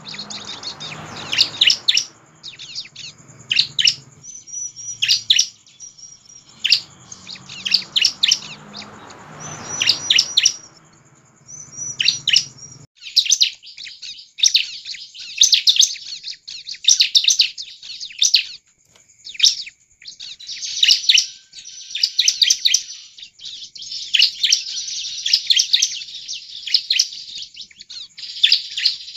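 Bar-winged prinia (ciblek) singing vigorously and without pause: fast runs of sharp, high chirps and trills, repeated in quick bursts.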